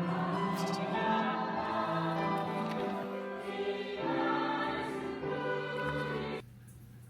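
Background music with slow, held vocal-like chords that stops abruptly about six seconds in, leaving quiet room tone.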